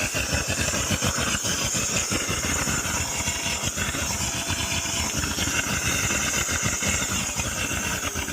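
Household vacuum cleaner running steadily, sucking engine oil out of the drain during an oil change, with a rapid uneven crackle underneath.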